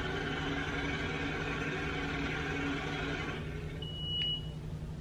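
Logo intro of a music video playing: a steady, even sound over a low hum fades out about three seconds in, then a single short high electronic beep sounds near the end.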